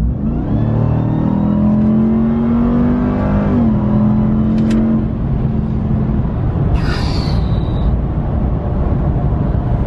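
Ram 1500 TRX's supercharged 6.2-litre Hemi V8 accelerating hard, heard from inside the cab, with supercharger whine. The engine note climbs, drops at an upshift about three and a half seconds in, then holds steady before easing into a rumble. There is a brief hiss about seven seconds in.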